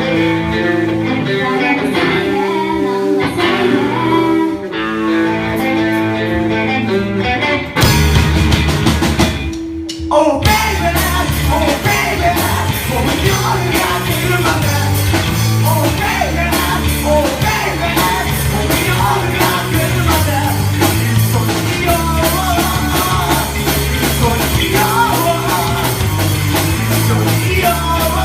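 A live rock band playing a song with singing. It starts with a lighter passage of guitar and held vocal notes. About eight seconds in, the full band comes in with drums and bass, drops out briefly around ten seconds, then carries on loud with a steady beat.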